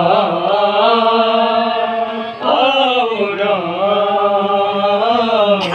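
Unaccompanied noha, a Muharram lament, chanted by a man's voice in two long, wavering held phrases. A single sharp click comes near the end.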